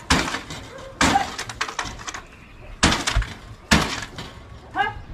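Four loud crashing bangs, each with a brief rattling ring, at uneven gaps of about a second, followed near the end by a short call that rises in pitch.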